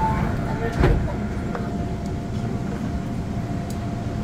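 Inside a Seoul Subway Line 2 train car standing at a station: steady cabin rumble, one thump about a second in, then a thin steady hum.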